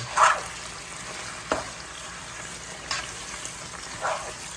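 Pork sizzling as it fries in a pan with garlic and onion, with a utensil scraping and tapping against the pan a few times as it is stirred.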